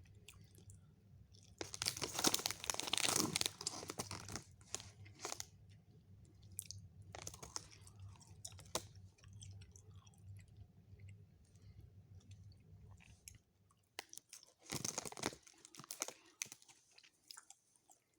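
A person chewing cherry Twizzlers close to the microphone: wet, irregular chewing, louder about two seconds in and again around fifteen seconds in.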